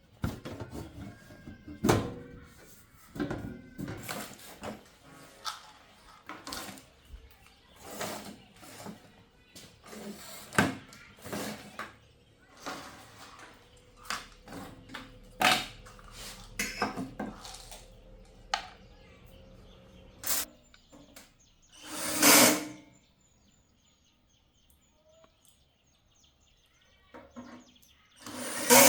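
Irregular clicks, knocks and clinks of tools and parts being handled while an amplifier is repaired. About 22 s in there is a short, loud rush of noise.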